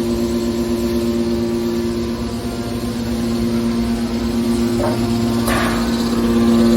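Hydraulic scrap-metal baler's power unit running, a steady loud hum. About five seconds in, two brief noisier sounds rise above it.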